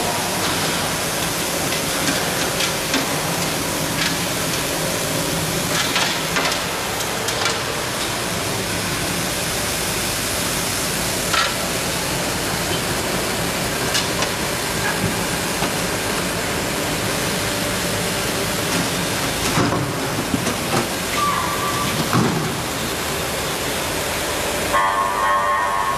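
Ride-on floor sweeper running: a steady rushing noise from its motors and rotating brushes on a concrete floor, with scattered small clicks and knocks of swept debris. Near the end the rushing drops away and a brief steady hum is left.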